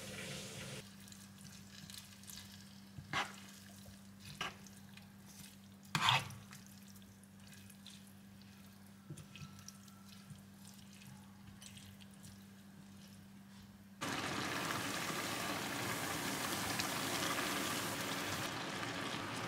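Pan of cabbage-and-dumpling hot pot cooking on an induction hob. First there is a faint steady hum and a few sharp taps of a utensil on the pan. About two-thirds of the way through, the sound switches suddenly to an even hiss of the broth simmering and sizzling.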